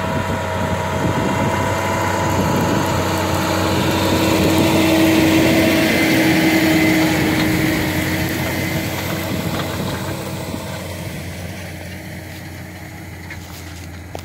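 John Deere tractor engine working under load as it pulls a Kverneland CLC Pro field cultivator through stubble, with a steady whining tone over the engine. It grows louder to a peak about halfway, then fades as the tractor moves away.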